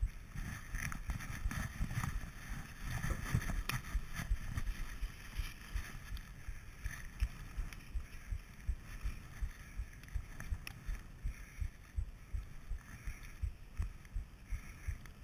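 Skis carving through deep powder snow, heard through a GoPro's sealed housing as a string of muffled low thumps, two to three a second, with a hiss of sprayed snow that is strongest in the first few seconds.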